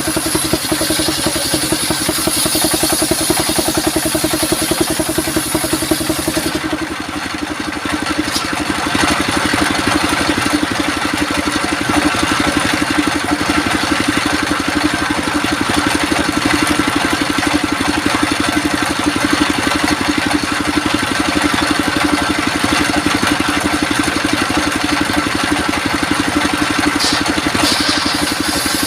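Engine of a circular sawmill running steadily with an even, rapid beat. About six and a half seconds in the sound changes: the high hiss drops away and a higher-pitched band comes in and holds.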